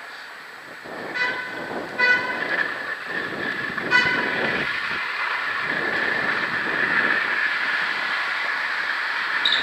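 Longboard wheels rolling fast over asphalt: a steady rumbling hiss with a high whine running through it. Three short, high beeps cut in about one, two and four seconds in.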